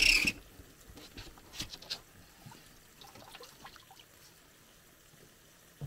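Water from a hot tub being drained, trickling and dripping faintly with scattered small ticks. A short loud rush of noise cuts off in the first moment.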